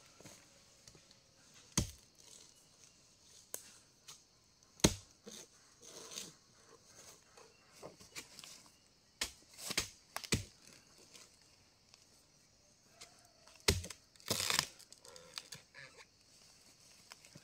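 Dry vegetation snapping and rustling: about ten sharp cracks at uneven intervals, with faint rustles between them.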